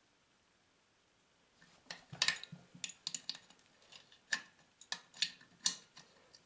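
Irregular sharp metal clicks and taps of a small wrench on the nuts of a Huter BS-45 chainsaw's muffler as they are fitted and tightened, starting about two seconds in.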